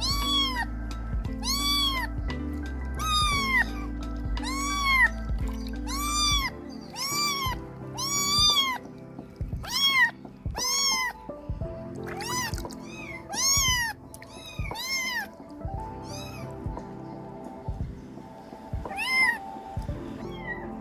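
Kittens mewing over and over, high-pitched calls that rise and fall, about one a second, thinning out in the last few seconds, over background music.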